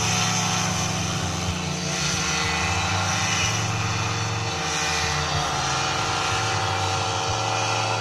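Paramotor's small engine and propeller running at takeoff power as the pilot runs and lifts off, a steady engine note with many overtones. Gusts of wind rumble on the microphone.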